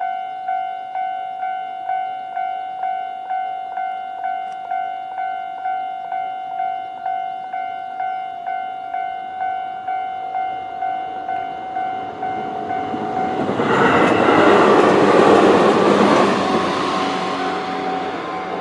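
Japanese level-crossing warning bell ringing at its normal tone, about two chimes a second, until about thirteen seconds in. A Tobu 850-series electric train then passes over the crossing, loudest about fifteen seconds in and fading toward the end.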